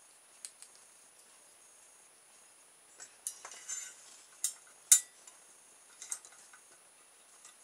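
Light clicks, taps and a brief scrape as a wooden skewer axle and plastic wheels are handled and fitted through a thin sheet-metal floppy-drive case; the sharpest click comes about five seconds in.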